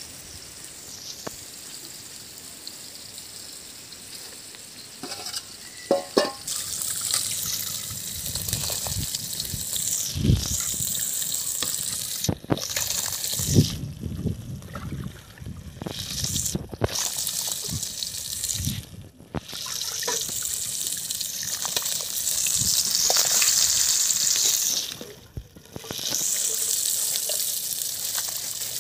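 Rice being washed by hand in an aluminium pot of water: the water sloshes and swishes as the grains are stirred and rubbed, starting about six seconds in and breaking off briefly a few times, with a few low knocks against the pot.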